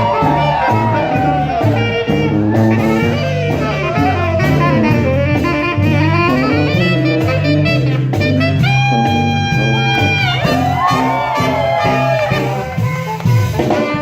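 Brass band playing a lively jazzy tune, with horns over drums and a steady bass line; about nine seconds in the horns hold a long chord for a couple of seconds.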